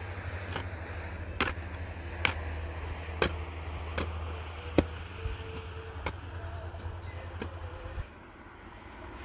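Pick being swung into stony soil, digging: sharp strikes a little less than a second apart, about ten in all.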